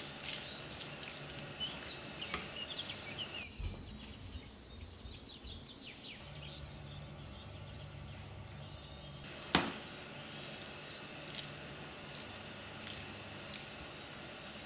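Grated cheese tipped onto ham in a non-stick frying pan and stirred with a silicone spatula: soft scraping and rustling, with one sharp click about two-thirds of the way through. Faint bird chirps in the background during the first three seconds or so.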